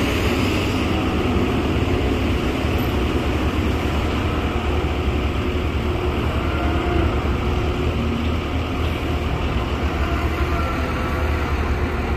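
Steady machinery drone with a deep hum and a wide hiss.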